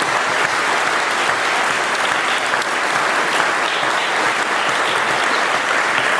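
Audience applauding steadily, a dense continuous clapping from a large crowd.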